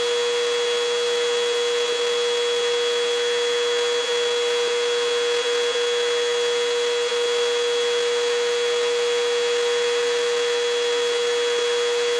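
Vacuum cleaner running steadily with a constant whine over a rushing hiss, cleaning dust off a desktop computer case.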